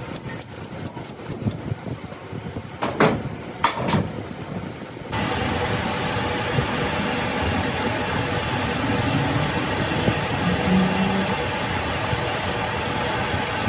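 A couple of sharp knocks, then about five seconds in a machine starts up and runs steadily, a constant hiss with a steady hum.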